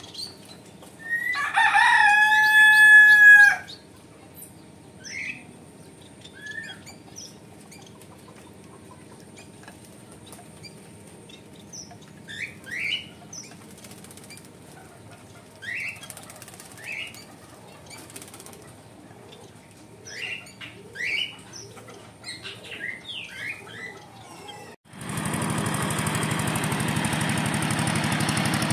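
A rooster crows once, loudly, for about two and a half seconds, followed by scattered short rising bird chirps. Near the end the sound changes to a steady noise of wind with a distant engine running.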